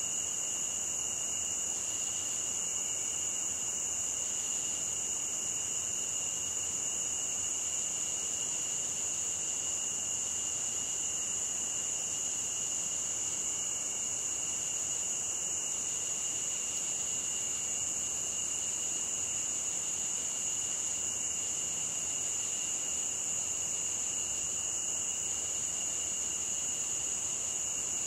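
Steady high-pitched insect chorus, an even chirring at two high pitches that never breaks or changes.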